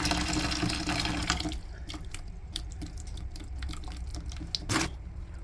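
Water running out of a Burnham steam boiler's drain into a container as the boiler is flushed of sediment. The rush of water drops away about a second and a half in, leaving scattered drips and small splashes, with one short louder burst near the end.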